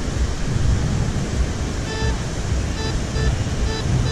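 Wind buffeting the microphone with surf behind it. From about halfway in come five short, pitched beeps from a metal detector responding to a buried target.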